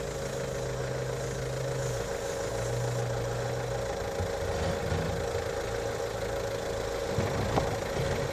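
Dacia Duster 4x4's engine running steadily at low revs, near idle, as the SUV crawls down a steep dirt slope.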